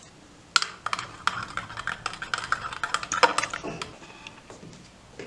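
Typing on a computer keyboard: a quick, irregular run of key clicks lasting about three seconds, starting about half a second in.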